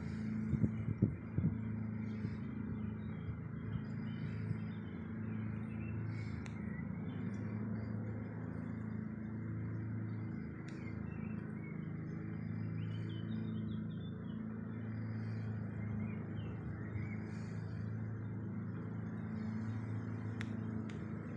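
A machine hums steadily and low the whole time, with a few faint bird chirps over it. A few soft knocks come about a second in.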